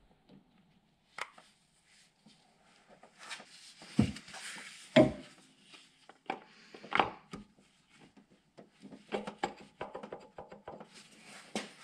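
Irregular clinks and knocks of metal engine parts being handled at the crankshaft nose as the crank pulley is worked, with two heavier thuds about four and five seconds in.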